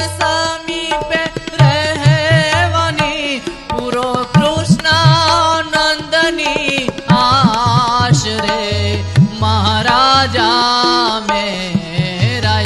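Indian devotional song with tabla accompaniment: a voice holds long, wavering notes over regular tabla strokes.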